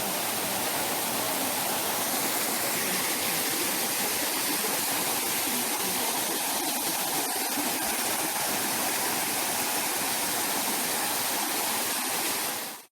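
Waterfall rushing steadily, a constant even wash of falling water that fades out quickly near the end.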